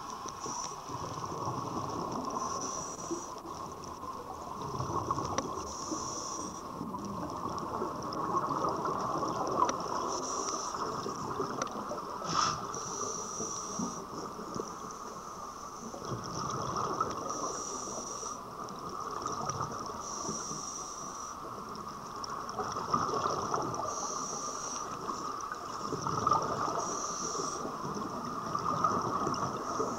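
Scuba diver's regulator breathing underwater: bursts of exhaled bubbles every few seconds over a steady hiss.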